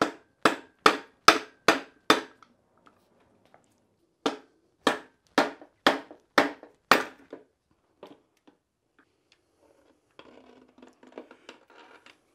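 Rubber mallet striking the end of a steel axle shaft pushed through a Porsche 356 transaxle, knocking the differential carrier out of the case: two runs of six sharp blows, about two a second, with a short pause between. Fainter rattling and handling noise near the end.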